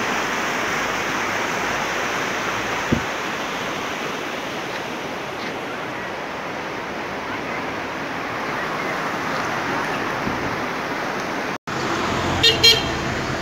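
Steady rush of a fast-flowing river, an even noise of running water that breaks off for an instant near the end.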